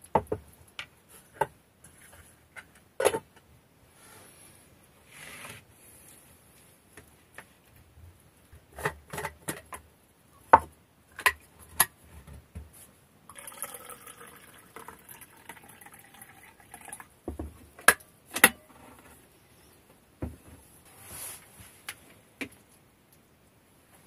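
A spoon scrapes and clinks against a cooking pot and a plastic bowl, with scattered sharp knocks of tableware. About halfway through, a drink is poured from a thermos flask into a mug for three or four seconds.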